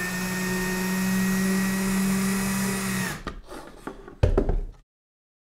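Cordless drill-driver running steadily as it drives a T10 screw through a 3D-printed plastic hub into plastic cable tubing, the motor stopping about three seconds in. A few knocks follow, and a thud as the drill is put down on the worktop.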